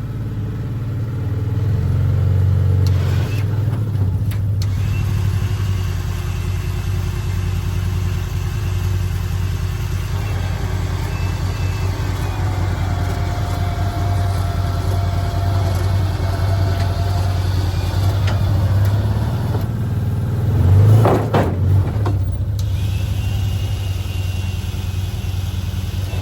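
Side-by-side UTV engine idling steadily, with a steady whine in the middle stretch and a brief rev about 21 seconds in.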